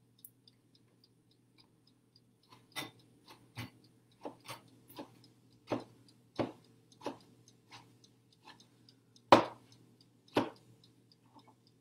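A kitchen knife chopping roasted eggplant on a cutting board: about a dozen uneven knocks, the loudest about nine seconds in. Under it runs a faint, steady ticking about twice a second and a low hum.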